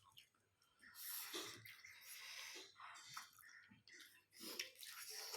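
Quiet eating sounds of spicy noodles: wet slurping and chewing, with breathing between mouthfuls.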